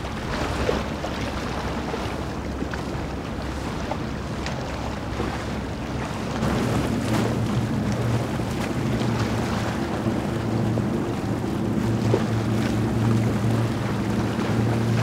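Moonen 85 motor yacht passing: the wash of its hull and wake with wind on the microphone. About six and a half seconds in, the steady low drone of its diesel engines comes in and holds.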